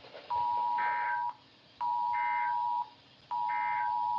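Emergency Alert System end-of-message code ending a tornado warning: three short bursts of warbling digital data tones, each sounding inside a one-second two-tone beep. The beeps repeat about every one and a half seconds.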